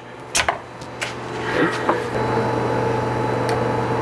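A few light clicks in the first second, then a steady electric machine hum with a low drone and a couple of held higher tones, growing louder about two seconds in and holding steady.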